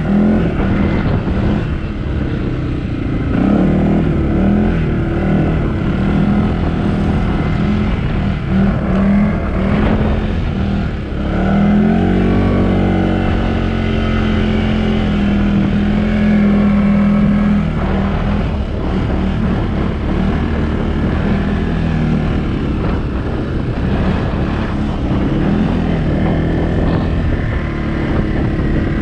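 CFMOTO ATV engine running under a rider's throttle through deep snow, its pitch rising and falling as the throttle is opened and eased. About twelve seconds in it climbs and holds higher for several seconds before settling back.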